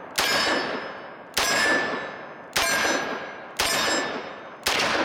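Smith & Wesson 586 .357 Magnum revolver fired one-handed: five shots about a second apart, each followed by a long fading echo.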